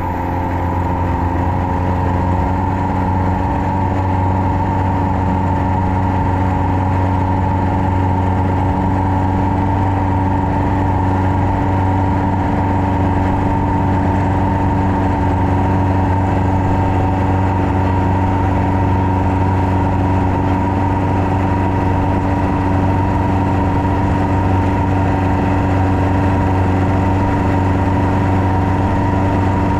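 Long-tail boat's engine running steadily at cruising speed, a loud, even drone with a deep hum at its base that swells up over the first couple of seconds and then holds constant.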